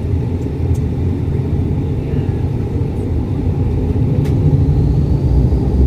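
Turboprop airliner engines and propellers running, heard inside the cabin as a loud, steady low rumble. A faint high whine rises slightly about four seconds in.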